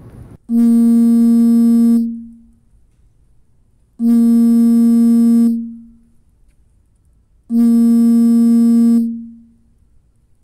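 Electronic synthesizer tone, the same note sounded three times about three and a half seconds apart; each starts suddenly, is held about a second and a half, then dies away.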